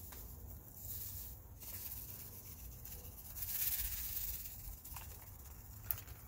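Hissing rustle of mycorrhizal inoculant being shaken out by hand onto a soil mound, swelling to its loudest a little past the middle, with a sharp tick near the end.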